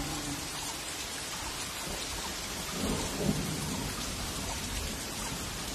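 Steady heavy monsoon rain, with a low rumble of thunder about three seconds in.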